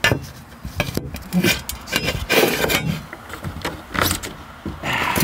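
Plastic buckets of a double-bucket bee vacuum being handled: a series of irregular knocks and scrapes, several in a row.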